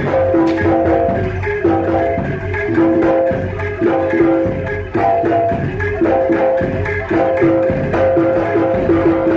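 Javanese jaranan music: a quick, repeating figure of pitched percussion notes over steady drumming.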